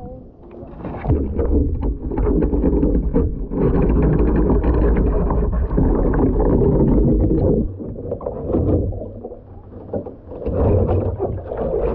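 Water rushing and splashing around a kayak as it capsizes and is rolled back up, heard through a deck-mounted camera that goes under the water. A muffled rush of water starts about a second in and lasts several seconds, then drops away, and there is a second spell of splashing near the end as the paddler comes back up.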